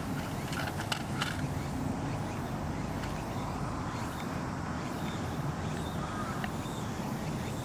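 Outdoor background noise: a steady low rumble with a few short high chirps about a second in and a faint one near the end.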